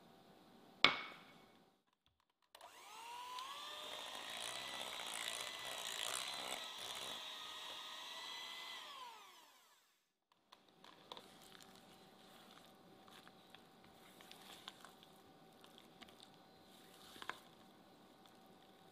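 A sharp clink about a second in. Then a Philips electric hand mixer beats buttercream in a glass bowl for about seven seconds, its whine rising as it starts and falling away as it stops. After that comes faint scraping of a silicone spatula against the bowl.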